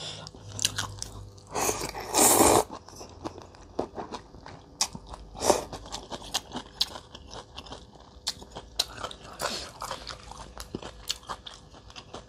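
A person slurping a mouthful of rice noodles in broth about two seconds in, then chewing with many small wet mouth clicks and smacks.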